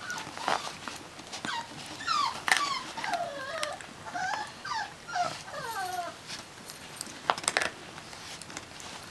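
A dog whimpering: a string of short, high whines, each falling in pitch, from about two seconds in until about six seconds in. A few sharp clicks come before and after the whines.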